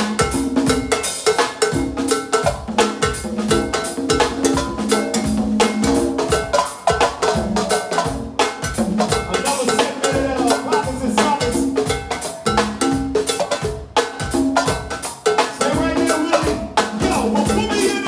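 Live band playing a steady go-go pocket groove: drum kit, congas and cowbell in a dense, rhythmic pattern over sustained chords.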